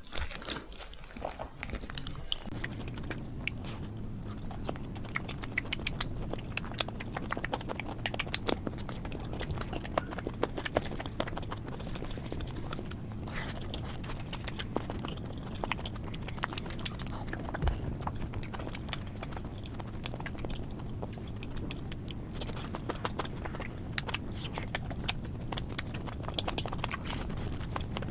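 Close-miked chewing and smacking mouth sounds of a person eating curry, dal and egg omelet, a steady stream of small wet clicks, over a steady low hum.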